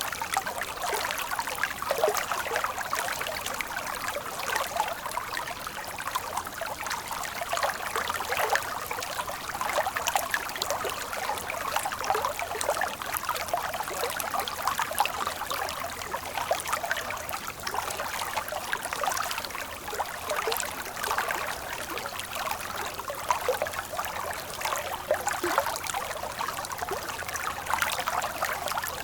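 Stream of water running and splashing steadily, a continuous babble of small splashes with no deep rumble.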